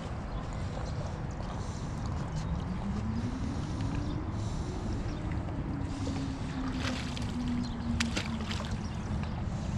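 A boat's motor drones on the river, its pitch rising over a couple of seconds and then slowly sinking, over a steady low rumble. A few sharp clicks come near the end.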